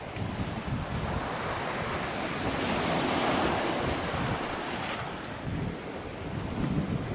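Sea surf washing on the shore, with wind buffeting the microphone; the surf swells up about two and a half seconds in and eases off around five seconds.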